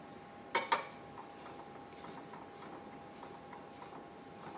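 A fine Arkansas sharpening stone drawn along steel speed skate blades clamped in a sharpening jig, with faint light scraping and small ticks. Two sharp clicks come about half a second in. This is the final polishing pass that pushes an unwanted overburr back off the edge.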